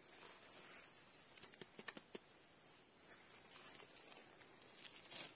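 A steady, high-pitched insect drone. A few soft clicks and rustles of hands working in dry leaf litter and soil come about two seconds in.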